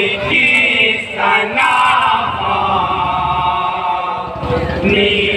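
A group of men singing an Urdu kalam together in chorus into microphones, in long held lines with no instruments.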